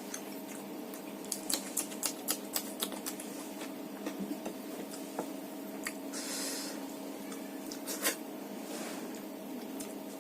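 Eating by hand from a plate of rice and fish curry: a quick run of sharp clicks a little over a second in, then scattered clicks and two short wet, squelchy smears, over a steady low hum.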